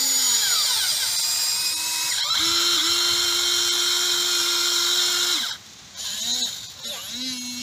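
Huina remote-control excavator's electric motors whining like a small drill as the arm and bucket move. The pitch slides as each motion starts, holds steady for about three seconds, then cuts off about five and a half seconds in.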